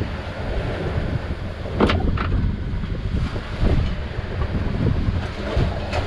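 Strong wind buffeting the microphone over a small boat running through choppy sea under outboard power, with waves splashing against the hull. Two sharp knocks come about two seconds in.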